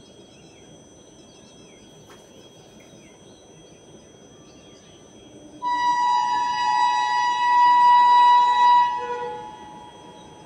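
A train horn sounding one long, steady blast of about four seconds, starting about halfway through and fading out near the end. Birds chirp faintly before it.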